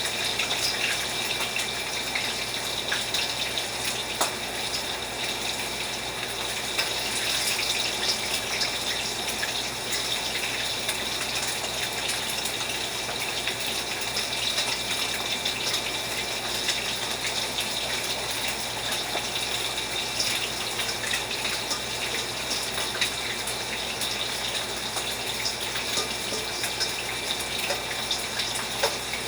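Steady sizzling hiss of food cooking on a stove, with fine crackles throughout.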